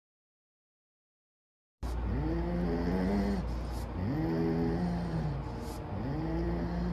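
A serval with a raw chicken drumstick in its mouth growling over its food: three drawn-out low growls, each rising, holding and falling, starting about two seconds in after a silent gap.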